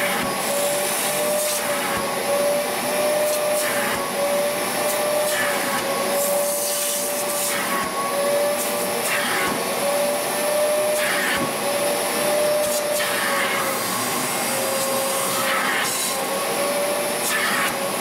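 Wet-extraction upholstery vacuum running steadily, its motor whine wavering slightly in pitch. Its nozzle is drawn in repeated strokes across a wet fabric car seat, sucking up water and dirt, and a hiss swells with each stroke.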